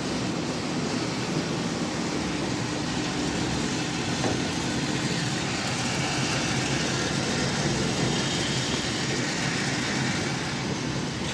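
Cattle-feed mill machinery running: a steady, even mechanical drone with a low hum through it.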